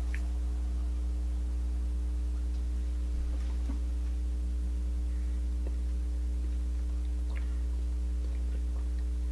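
Steady low electrical hum with a few steady higher tones over it, and a few faint small clicks.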